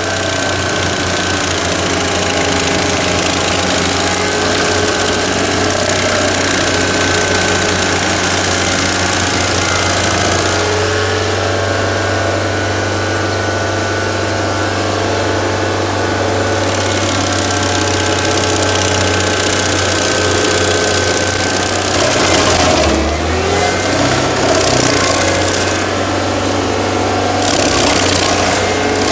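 Stump grinder running under load, its spinning cutter wheel grinding into an oak stump: a steady engine note with the noise of the cutting over it. The engine's pitch dips briefly and recovers about three-quarters of the way through.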